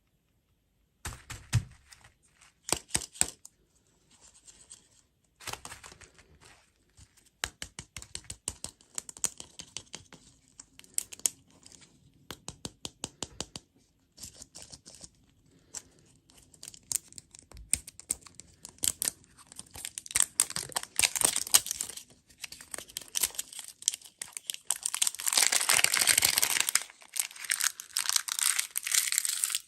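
Plastic food and candy wrappers being crinkled and torn open by hand: a long run of sharp crackles and rustles, with a longer, louder stretch of tearing near the end.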